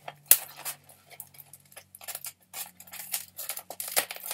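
Styrofoam packing being pulled and rubbed as an item is worked out of a box: irregular sharp clicks and short scrapes, the loudest about a third of a second in.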